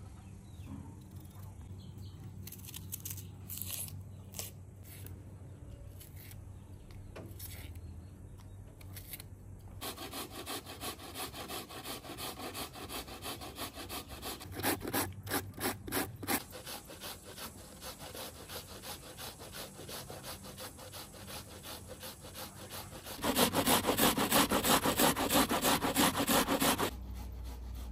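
Raw potato and onion being grated on a metal box grater over a steel bowl: rapid, rhythmic rasping strokes. They start about ten seconds in and are loudest and densest for a few seconds near the end.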